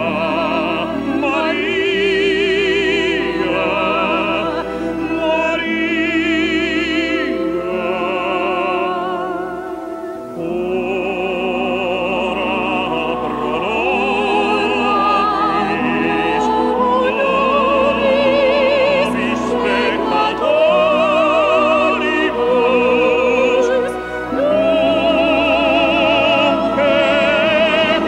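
Operatic singing with orchestral accompaniment: long held notes with a strong vibrato.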